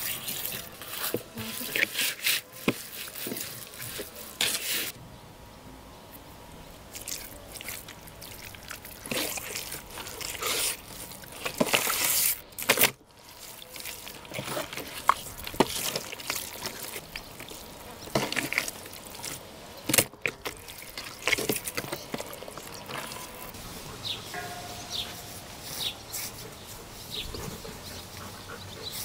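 Hands pouring oil over a large raw cut of meat and rubbing oil and seasoning into it, with many short sharp handling clicks and taps.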